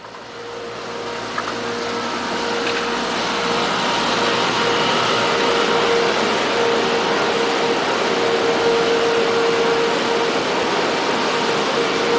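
Miami MetroZoo monorail train, the one sold on from the 1984 New Orleans World's Fair, running along its elevated concrete track. It makes a steady rushing noise that swells over the first couple of seconds, with a thin steady whine underneath.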